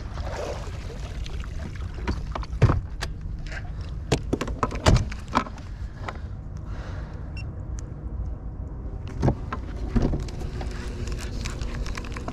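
Scattered clicks, knocks and rattles of fishing gear being handled on a boat over a steady low hum, with the sharpest knocks about a third of the way in.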